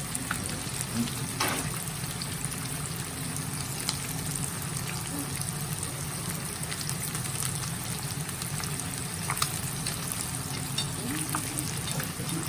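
Pieces of black bass deep-frying in hot oil for karaage: a steady sizzle with scattered crackles and pops.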